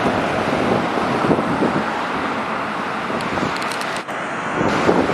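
Wind buffeting the microphone over the steady running noise of an approaching Keikyu 800 series electric train, with a brief drop in level about four seconds in.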